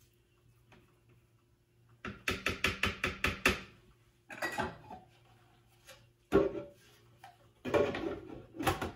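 Hard plastic parts of a food processor being handled, with the machine stopped: a quick run of about eight taps a couple of seconds in, then scattered clattering knocks and scrapes of the lid and bowl.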